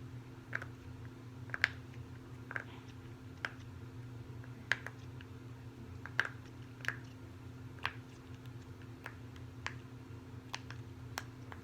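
Short soft pops at an uneven pace, one or two a second, from fingers pressing in the bubbles of a silicone pop-it fidget toy.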